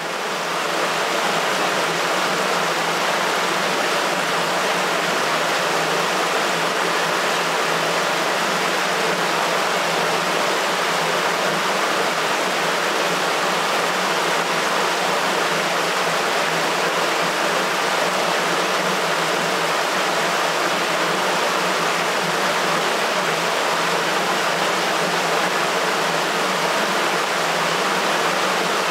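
Water rushing through a sewer, a steady, even rush that swells up within the first second and then holds.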